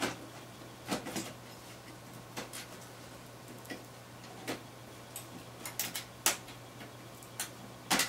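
Light, irregular metal clicks and taps, about a dozen, as fingers press the motherboard's sheet-metal I/O shield and pop its tabs into place around the ports.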